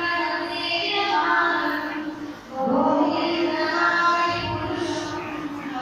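Devotional singing with musical accompaniment, voices holding long notes. There is a short break about halfway through before the next phrase begins.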